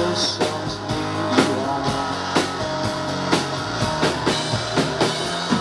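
Live rock band playing an instrumental stretch between sung lines: electric guitars and bass over a drum kit keeping a steady beat.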